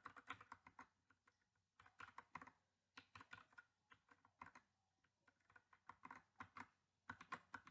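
Faint keystrokes on an HK Gaming GK61 mechanical keyboard: scattered single key clicks and short quick runs of presses.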